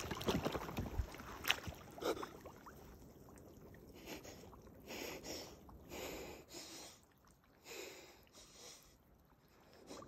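Ice water and floating ice sloshing in a tub as a man sits down in it. Then a series of heavy breaths blown out through cupped hands, about one a second, his breathing against the cold shock of the ice bath.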